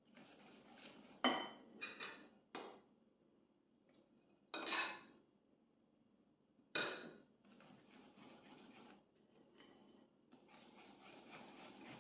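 Hand wire whisk scraping through flour and beaten egg in a ceramic bowl, with a spoon and the whisk clinking sharply against the bowl about five times as more flour is spooned in.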